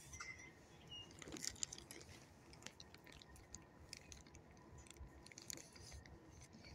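A dog chewing and crunching a treat: faint irregular crunches and clicks, loudest a little over a second in.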